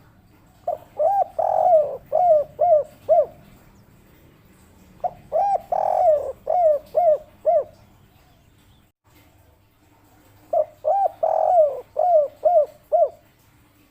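Spotted dove (tekukur) cooing: three song phrases a few seconds apart. Each phrase is a couple of short coos, a longer drawn-out coo, then three short clipped coos, the 'kuk 3' ending of this song type.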